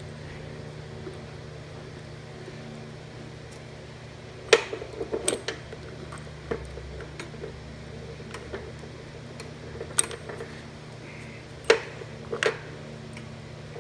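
Scattered light metallic clicks and clinks from a small-engine carburetor's throttle linkage rods and spring as they are worked into place by hand. The clicks come irregularly from about four seconds in, over a steady low hum.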